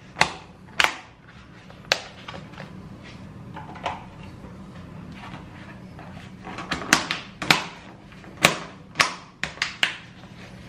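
Clear plastic lids being pressed and snapped onto black plastic meal-prep containers: a dozen or so sharp plastic clicks and snaps, a few spread out at first, then a quick cluster in the second half, over a steady low hum.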